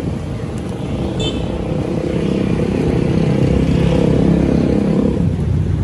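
A motor vehicle's engine passing close by in street traffic. It grows louder over a couple of seconds, then eases off near the end.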